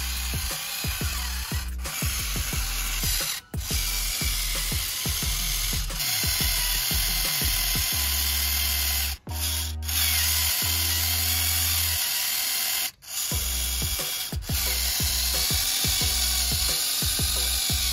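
Music with a heavy bass line and a steady beat, with the steady whir of a small electric gear motor running under it. The sound drops out for an instant three times.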